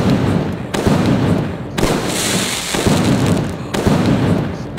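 Consumer fireworks cake, a Fun Club 24-shot cake, firing shells one after another, roughly one sharp bang a second, each dying away in a rumble. About two seconds in, a burst of crackling stars adds a dense crackling hiss.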